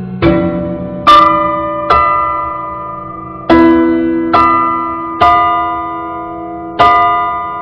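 Grand piano played solo: seven slow chords struck one at a time, each left to ring and fade, with a longer pause after the third and the sixth.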